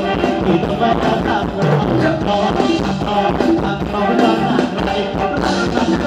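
A live band playing Thai ramwong dance music, with singing over a steady drum beat.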